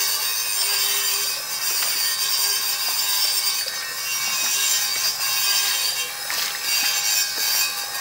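Night-time insect chorus in a rice field: many high-pitched trills layered into one steady, unbroken din.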